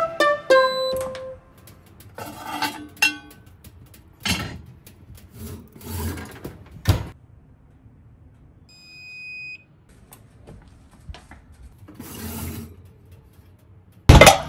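Music fades out at the start, then kitchen handling knocks and clicks, and a single long beep from an electric oven's control panel about nine seconds in. Near the end comes a loud clunk as the enamelled Dutch oven is handled on the oven rack.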